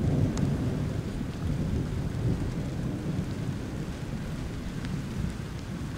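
Long, low rumble of rolling thunder, slowly fading.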